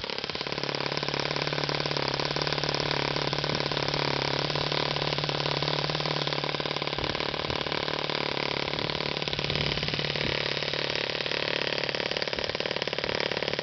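OS FS-20 four-stroke glow model airplane engine running steadily, left to run for break-in.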